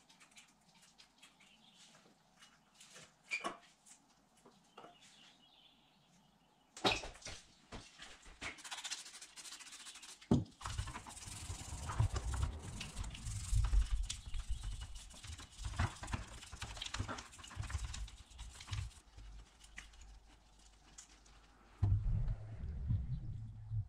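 Motorcycle sprocket carrier being handled and cleaned over a plastic parts tray. A few light clicks come first. About seven seconds in, hissing and scrubbing begin, with knocks and thuds against the tray, and they stop a few seconds before the end. Low thuds follow near the end.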